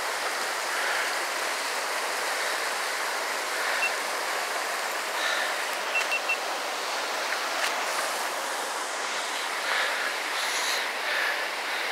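Steady rush of a shallow rocky creek running over small rapids.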